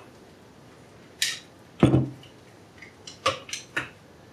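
Hard objects being handled: a short scrape about a second in, a heavier knock just before two seconds, then a few light clicks near the end, as an airsoft rifle and its battery are handled.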